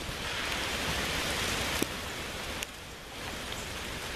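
A steady, rain-like hiss of freezing rain and ice falling through ice-glazed trees, easing a little about two and a half seconds in, with a couple of sharp ticks.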